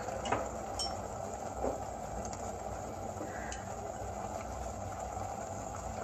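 Chicken and chana dal boiling in a steel pot on a gas stove: a steady bubbling hiss, with a few faint light clicks.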